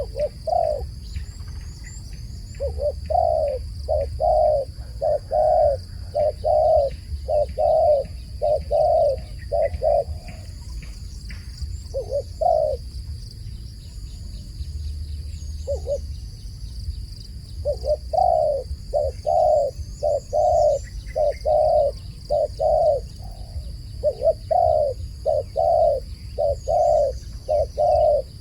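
A dove cooing: runs of short, evenly repeated coo notes, about two a second, breaking off for several seconds in the middle before starting again.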